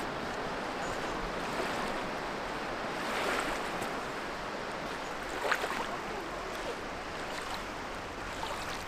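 The Ganges flowing past and lapping at a pebbly shore: a steady wash of water noise, with a few faint clicks, the sharpest about halfway through.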